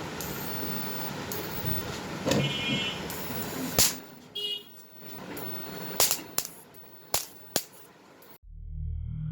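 Steady noisy background with several sharp clicks and two short high-pitched beeps, cutting off suddenly near the end, where a music track with a deep bass line starts.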